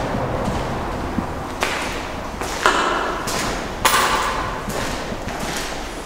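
Footsteps walking along a tunnel floor strewn with grit and debris, about one step a second, each a sharp scuffing tread, over a steady low rumble.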